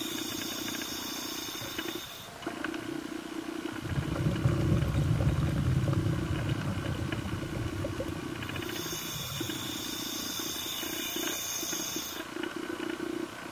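Scuba diver breathing through a regulator underwater: a hissing inhale that ends about two seconds in, a louder burst of exhaled bubbles a couple of seconds later, then a second hissing inhale lasting about three seconds near the end. A steady low hum sits underneath.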